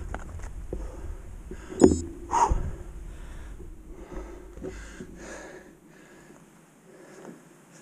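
Wind rumble on the microphone with scattered knocks and rattles from the bike and gear on a gravel track, dying down to quiet about six seconds in.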